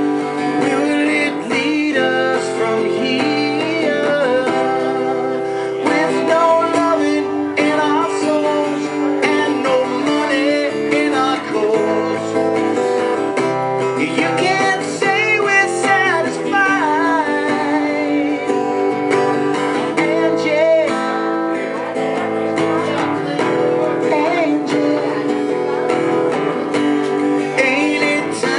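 A man singing a slow ballad while strumming an acoustic guitar, live and unaccompanied by other instruments.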